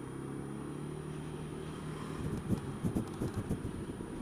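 Honda Dio scooter engine running at a steady pitch, picked up by a camera mounted on the scooter. From about two seconds in, a run of irregular knocks and rattles joins it.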